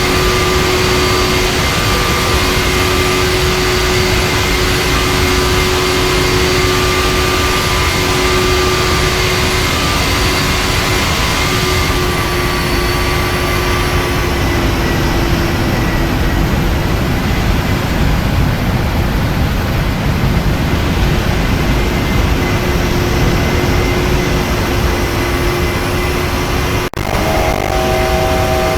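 Boeing 737-900's CFM56-7B jet engines heard from inside the cabin: a steady roar with a hissing upper part and a few steady hum tones. About twelve seconds in the hiss softens, and near the end the sound drops out for an instant.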